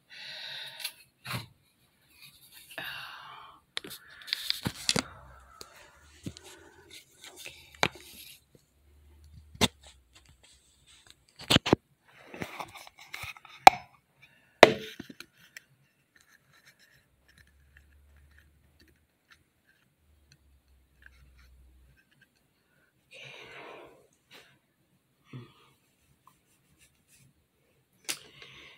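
Handling noise close to a phone's microphone: scattered sharp clicks and taps with short bursts of rustling over the first sixteen seconds, then mostly quiet apart from a brief rustle about twenty-three seconds in.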